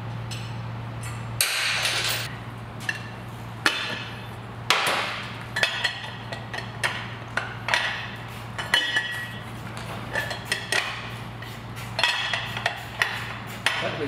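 Hand tools and metal parts clinking and knocking as the top end of a Harley-Davidson Sportster V-twin engine is taken apart. The clinks and knocks come at irregular intervals, some with a short metallic ring, over a low steady hum.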